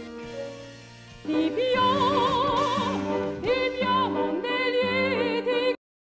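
A woman singing in classical operatic style with a wide vibrato, over grand piano accompaniment. Soft piano comes first, the voice enters loudly about a second in, and the sound cuts off abruptly near the end.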